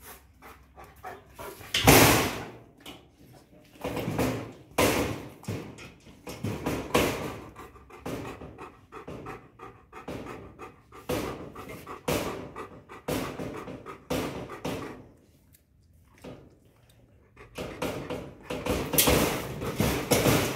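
Bernese mountain dog panting hard with its mouth open, close to the microphone, in a run of loud, rough breaths that ease off for a couple of seconds about two-thirds of the way through, then pick up again.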